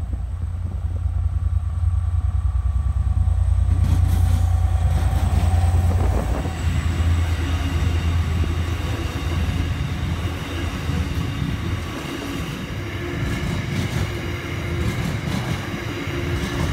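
A diesel-hauled freight train of hopper wagons passing close by. The locomotives' engines rumble heavily for about the first six seconds, then the wagons roll past with a steady rolling clatter and thin, steady high whining tones from the wheels.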